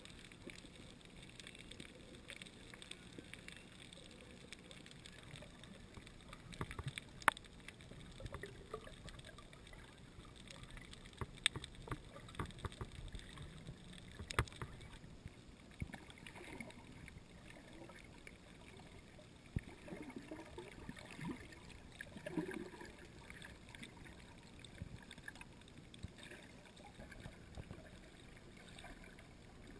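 Faint, muffled underwater sound: a steady water hiss with scattered sharp clicks, the loudest about seven and fourteen seconds in.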